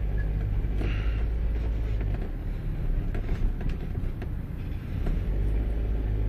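Steady low road and engine rumble of a car heard from inside, with a brief hazy sound about a second in.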